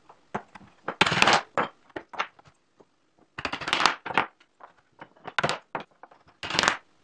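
Small pine wall blocks of a mouse maze knocking and scraping on the maze board as they are picked up and set down in new places. The clatter comes irregularly, loudest about a second in, around three and a half seconds in, and near the end.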